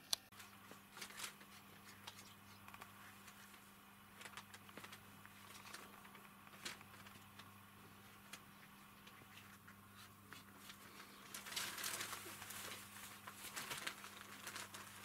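Faint rustling of paper and light taps as cats step about on a shelf piled with papers, denser in the last few seconds, over a steady low hum.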